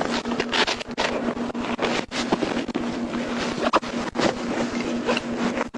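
Rustling and wind noise against the microphone, broken by irregular knocks, over a steady low hum.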